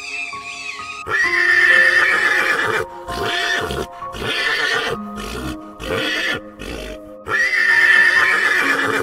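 Pony neighing twice, each whinny nearly two seconds long, over background music.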